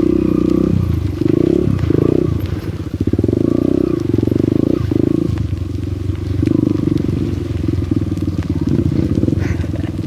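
Single-cylinder trail bike engine running at low speed on a muddy trail, the revs rising and falling every second or so as the throttle is opened and eased.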